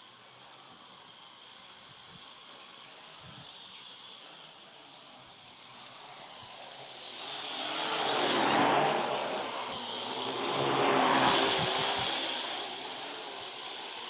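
Parrot AR.Drone quadcopter's electric rotors buzzing in flight, faint at first, then growing loud as it passes close by twice in the second half, the pitch sweeping with each pass.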